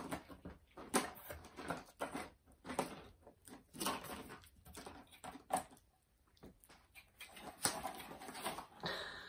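A Pomeranian rummaging through a cardboard box of dry strips and tennis balls: irregular rustling and scratching of the strips against the cardboard.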